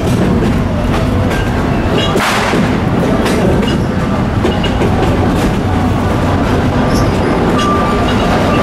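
Narrow-gauge amusement-park train rolling steadily, heard from aboard: a constant rumble of wheels and coaches with irregular clicks over the rail joints, a brief hiss about two seconds in and a faint wheel squeal near the end.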